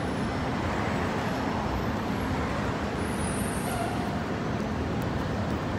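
Steady city street traffic noise: vehicles running and passing on the road, with no single event standing out.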